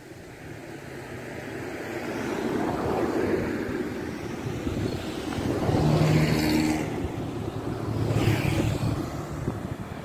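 Motor vehicle traffic passing: engine sound swells and fades, with two close passes about six and eight seconds in.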